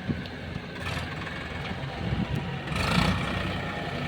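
Diesel engine of a tractor-type work machine running steadily. About three seconds in there is a brief louder burst of noise.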